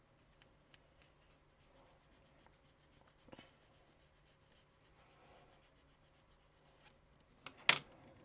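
Light scratching and scraping of a small tool on hard plastic, trimming material away so a part will fit. A single sharp click near the end.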